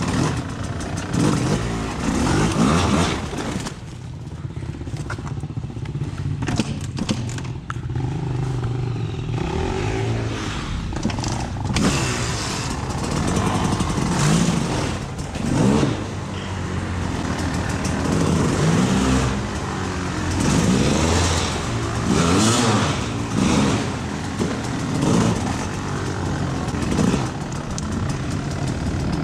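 Off-road vehicle engine under way, revving up and down again and again, with a quieter stretch about four to eight seconds in.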